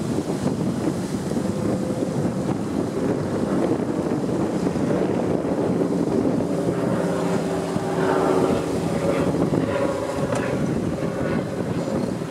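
Wind buffeting the microphone over water rushing past the hull and wake of a sailboat under way in choppy water.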